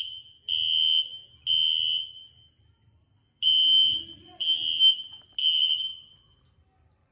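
Fire alarm sounder beeping a high-pitched tone in the temporal-3 pattern: beeps about a second apart in groups of three, with a pause between groups. This is the standard evacuation signal.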